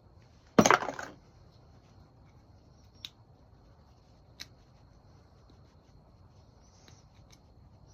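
Parts of a small injection pump being handled and pulled apart: a short scraping rattle about half a second in, then a few faint clicks.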